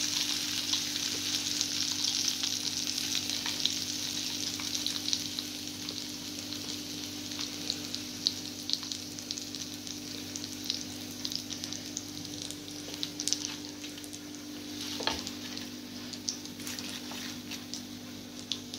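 Chicken pieces deep-frying in hot oil in an iron kadai: a steady sizzle with many small crackles and pops, slowly growing quieter, as the fried pieces are lifted out with a metal slotted spoon.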